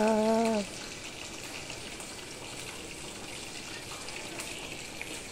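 Hot oil sizzling steadily as chicken pieces deep-fry.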